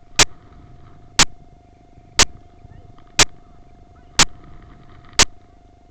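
Sharp ticks exactly once a second, like a clock, over a faint steady tone and low background noise.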